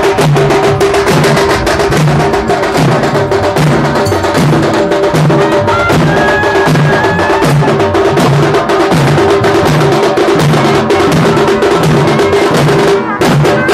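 A troupe of large dollu barrel drums beaten together with sticks and hands in a fast, steady, driving rhythm, with a strong low beat and a dense crackle of sharp strokes, as in a Dollu Kunitha drum dance.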